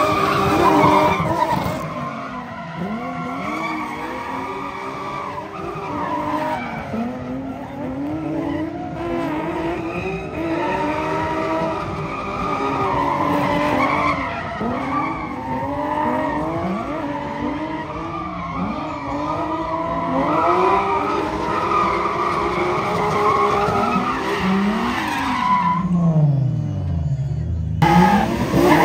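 Drift cars' engines revving up and down repeatedly as they slide, with tyre noise under them. Near the end the sound sinks into a deep falling tone for about two seconds.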